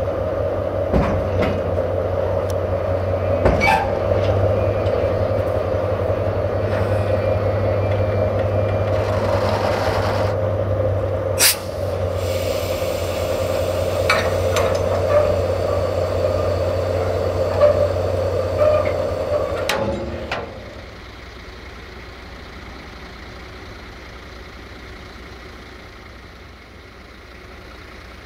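Siemens ER20 Hercules diesel locomotive running steadily close by, with scattered metallic clanks, a short hiss of air from the brakes about nine seconds in and a sharp crack a little later. At about twenty seconds the engine sound gives way to a much quieter steady hum.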